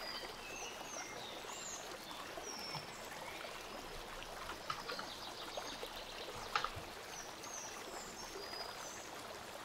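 Steady, faint background hiss, with scattered faint high chirps and a few soft clicks.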